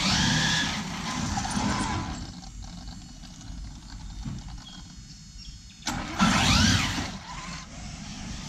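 Large 1/5-scale RC truck driving, motor and drivetrain whining with tyre noise. It is quieter through the middle, then about six seconds in a whine sweeps upward as the truck accelerates hard.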